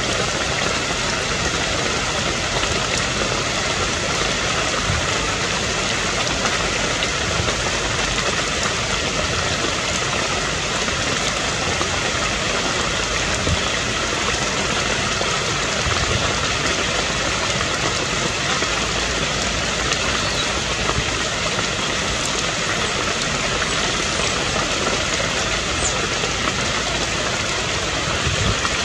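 Steady rain falling, a dense even hiss without a break.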